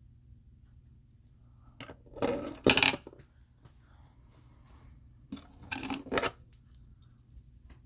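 Small hard makeup items being handled: two short bursts of clattering and rubbing with sharp clicks, one about two seconds in and another about five and a half seconds in.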